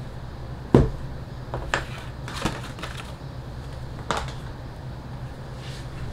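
A few sharp knocks and taps of a steel weight, hand tools and leather being set down and handled on a wooden workbench, over a steady low hum. The heaviest knock comes just under a second in, and lighter taps follow at irregular intervals.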